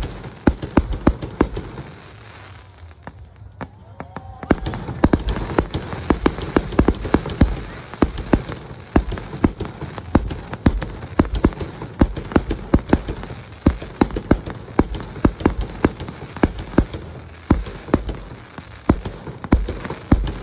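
Fireworks going off close by: a rapid, uneven string of sharp pops and bangs with dense crackling between them. There is a short lull about two to four seconds in, and then the pops pick up again.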